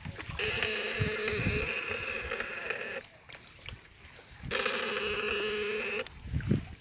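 Homemade two-battery electrofishing shocker (setrum platina) buzzing while switched on to send current into the water: a steady hum with a bright hiss on top. It runs for about two and a half seconds, stops, and comes on again for about a second and a half.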